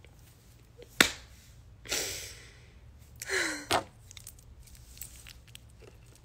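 A sharp click, then a person's breathy exhale and a short sigh-like vocal sound with a falling pitch, followed by another click.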